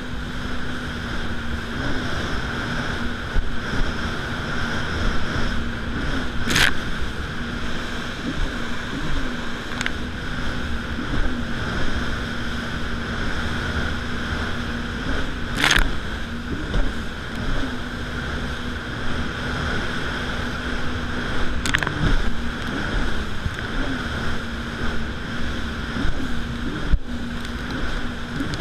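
Yamaha VX110 jet ski's engine running at a steady cruising pitch, with water rushing past the hull and wind noise; the engine note lifts briefly every second or two as the craft rides over waves. Three sharp knocks stand out along the way.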